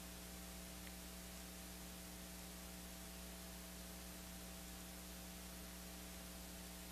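Steady low electrical hum with several overtones under a faint even hiss: mains hum and noise from the sound system, with nothing else happening.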